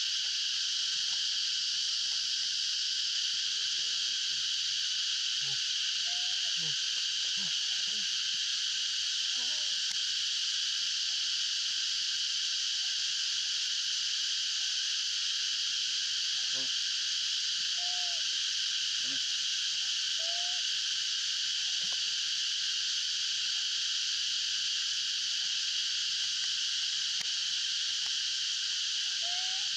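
Steady, dense, high-pitched chorus of calling wild animals, unbroken throughout, with a few faint short chirps rising over it in the second half.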